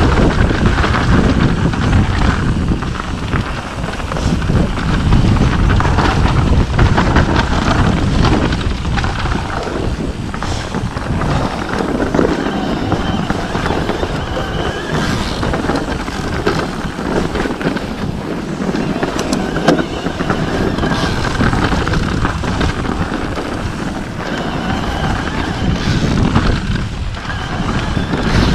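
Mountain bike ridden along a rough dirt trail: tyres rolling over dirt and stones with the frame and parts rattling at each bump, under steady wind rush on the camera microphone.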